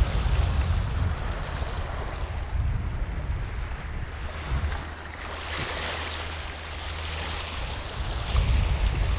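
Small waves washing over a rocky shore shelf, one wash swelling a little past halfway, with wind buffeting the microphone as a low rumble.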